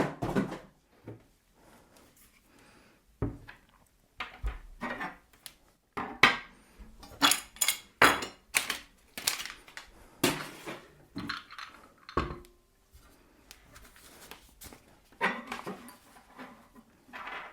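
Metal parts of a pillar drill being handled during unpacking: irregular clinks, knocks and clattering with short pauses.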